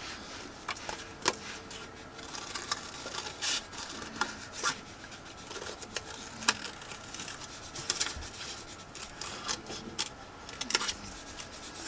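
Scissors cutting paper in short, irregular snips, with paper rustling and rubbing as the sheet is turned between cuts.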